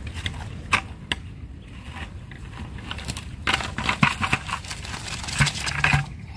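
Rustling, scraping and clicking of a collapsible mesh crab trap's netting and wire hoops being handled and shaken over a bucket, with a dense burst of clicks and rattles a little past halfway and two soft thumps near the end.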